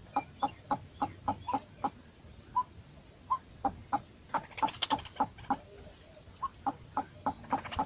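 Birds calling in a rapid series of short calls, about five a second at first, then more scattered, with a brief flurry of sharper calls around the middle.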